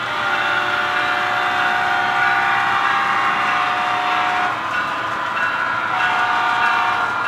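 Horn of the HO scale diesel locomotive sounding for the grade crossing: a held chord in long blasts, with a break about four and a half seconds in before the next blast.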